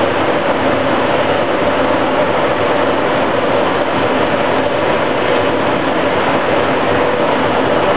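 Phoenix METRO light rail car running at speed, heard from inside at the front of the car: a steady rolling rush of wheels on rail with a constant hum running through it.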